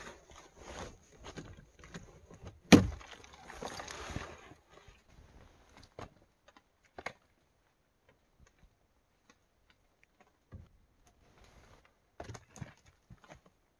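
Chunks of rotten wood being pulled from inside a hollow tree trunk and tossed out onto the ground: scraping and crumbling in the first few seconds with one loud sharp knock about three seconds in, then scattered light knocks and thuds.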